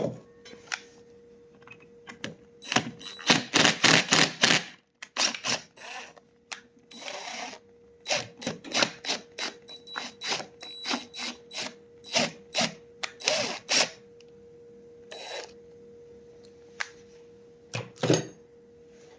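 Hand tools clicking and clattering against chainsaw parts during a teardown, in quick runs of sharp knocks, over a steady hum.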